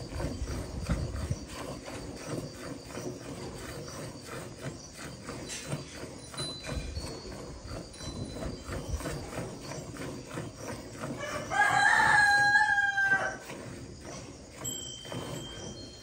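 Rhythmic squirts of milk from hand milking hitting a steel bucket. About three-quarters of the way through, a rooster crows loudly once, a call of nearly two seconds that falls at the end.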